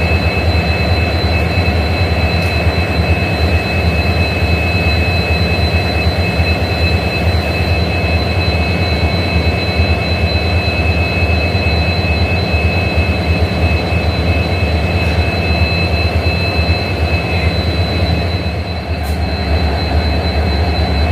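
Two EMD WDP4D diesel-electric locomotives idling together, their two-stroke 16-cylinder 710 engines giving a steady low hum with two steady high whines above it; the level dips slightly near the end.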